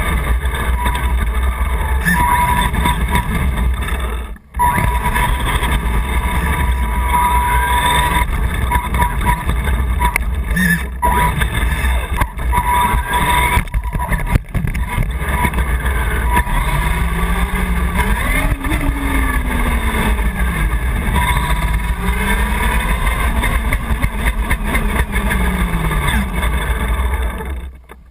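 Vaterra Twin Hammers radio-controlled rock racer driving over pavement, its motor whine rising and falling in pitch as it speeds up and slows, over heavy rumble from the onboard camera mount. The sound cuts out briefly twice and dies away at the very end as the car stops.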